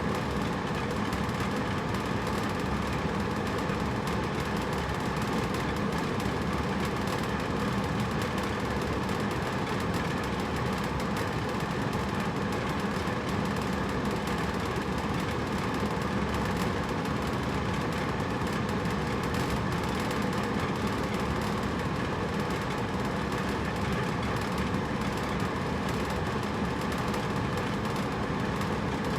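Hotel room air conditioner running with a steady whooshing hum of fan and airflow, unchanging throughout.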